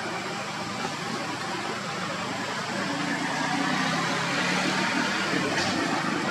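Steady outdoor background noise, an even hiss with a low hum under it that grows a little louder about three seconds in.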